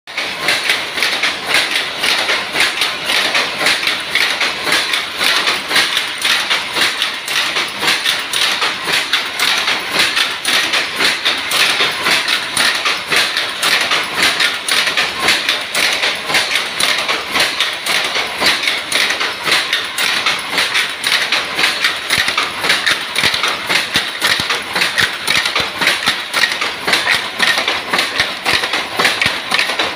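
Jacquard power loom running, a loud, steady clatter of evenly repeated knocks.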